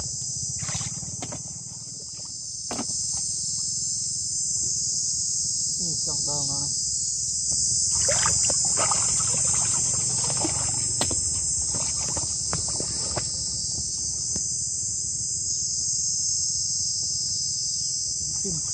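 A steady, high-pitched chorus of insects, with scattered sloshing and splashing of muddy pond water as a person wades and gropes for snails.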